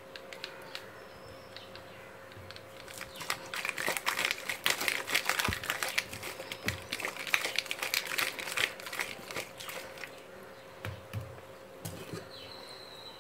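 Ice cubes rattling inside a glass capped with a steel tumbler as the kulukki sarbath is shaken hard: a dense clatter that builds about three seconds in and fades out near ten seconds.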